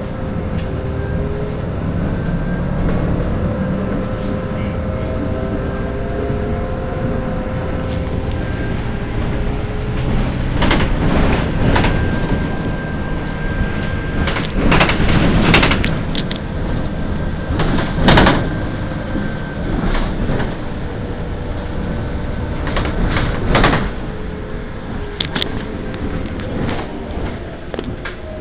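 Heuliez GX 327 city bus standing at a stop with its engine idling: a steady hum with faint whining tones. Between about ten and twenty-four seconds in, a string of sharp air hisses and clunks come from its pneumatic doors and air system.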